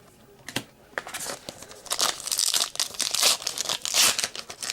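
Plastic wrapper of a trading-card pack crinkling and tearing as it is handled and opened, a couple of clicks first, then dense crinkling from about a second in.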